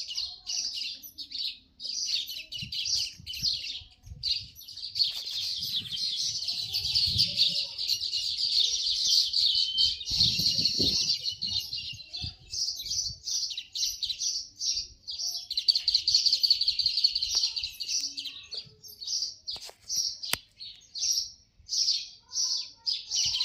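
Small birds chirping and twittering rapidly in high notes, nearly without a break through the middle and in shorter spurts at the start and end.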